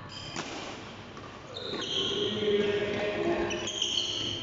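Badminton rally: a racket hits the shuttlecock once, a sharp crack about half a second in, then court shoes squeak in short held chirps on the court mat as the players move.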